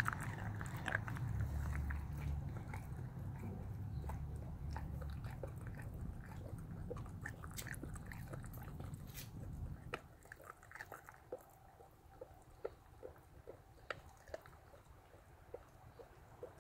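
Bulldogge puppy chewing and crunching a raw chicken leg quarter, bone and all, with wet bites and sharp cracks. Over a low background rumble that drops away about ten seconds in, settling into a steady chewing rhythm of about two bites a second.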